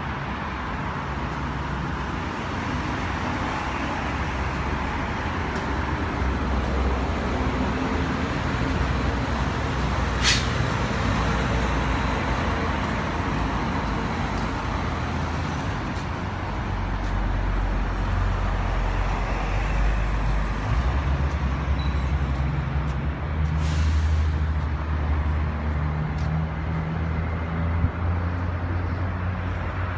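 Steady road traffic noise from heavy vehicles, a low engine rumble that swells and eases as they pass, with one short sharp hiss about ten seconds in.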